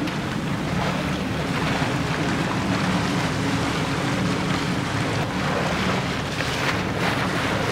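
Motor boat under way: its engine running with a steady low hum, under the rush of water and wake along the hull and wind buffeting the microphone.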